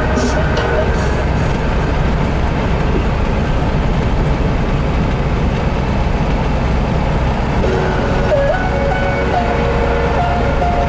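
Steady, loud engine and road rumble of a moving vehicle, heard from inside the cab, with reggae music playing over it; a melody line comes in about eight seconds in.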